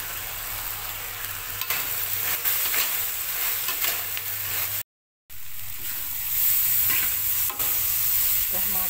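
Garlic chives and tofu sizzling in oil in a metal wok while a metal spatula stirs them, scraping and tapping against the pan. The sound breaks off completely for about half a second, five seconds in.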